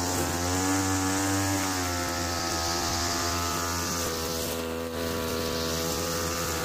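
Small TU26 two-stroke engine, taken from a backpack sprayer, running on a homemade remote-controlled lawn mower. Its pitch wavers up and down in the first couple of seconds, then holds steady, with a brief dip about five seconds in.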